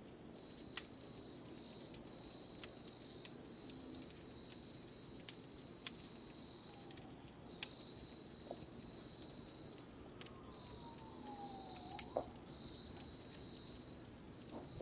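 Night insects chirping: a steady high trill with a second trill pulsing on and off beneath it. Faint sharp clicks come every second or two, and a faint falling whistle runs from about ten to twelve seconds in.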